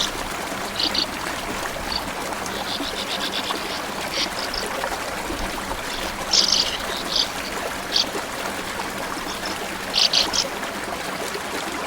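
Small stream flowing steadily, with sand martins giving short, high chirps scattered throughout, including a quick trill.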